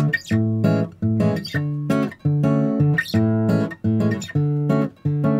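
Background music: guitar chords strummed in a steady rhythm, about two strums a second.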